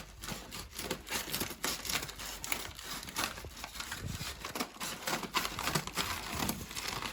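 Parcel packaging crinkling and rustling in irregular bursts as it is cut and pulled open by hand.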